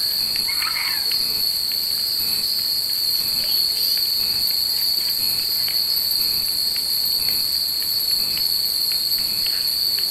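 A steady, loud chorus of cicadas, with many wind chimes (furin) hung in a tree tinkling lightly and irregularly over it.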